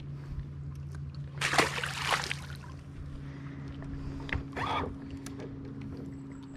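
Steady low mechanical hum on a bass boat, with two short bursts of noise, the louder about a second and a half in and a smaller one past four seconds.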